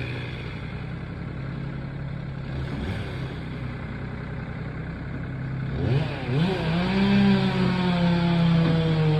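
Two-stroke Stihl chainsaw engine running steadily at part throttle, then revving up sharply about six seconds in and holding at high speed.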